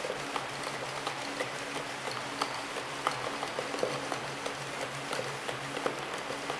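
Fully automatic horizontal labeling machine running: a steady whir with many irregular light clicks as the tubes knock along the roller conveyor under the labeling belt.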